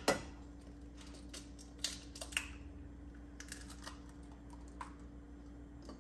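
Glass pan lid clinking and tapping against the rim of a stainless skillet: a sharp clink at the start, then scattered light clicks, over a steady low hum.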